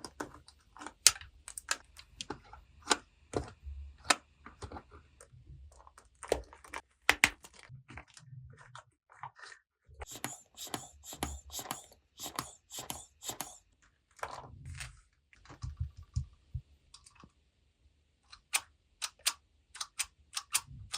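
Hard plastic toy pieces being handled: irregular clicks and taps, with a quicker run of clicks about halfway through.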